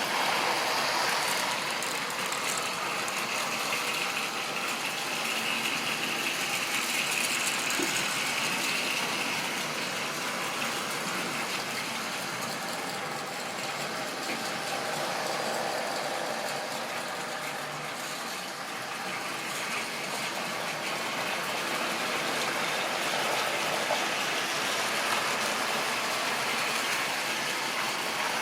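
Model railway train running on its track: the locomotive's small electric motor whirring and the rolling stock's wheels running over the rails. The sound is steady, easing slightly twice in the middle before picking up again.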